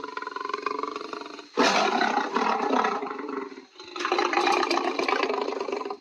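Lion roar sound effect: a quieter, drawn-out pitched call, then two loud roars, the first starting about a second and a half in and the second just before four seconds in, each lasting about two seconds.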